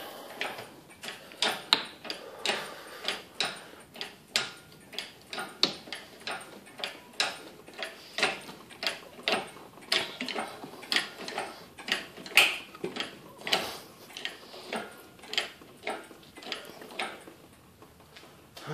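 Hydraulic engine hoist's pump handle being worked to lift an engine: a steady run of sharp clicks and knocks, about two a second.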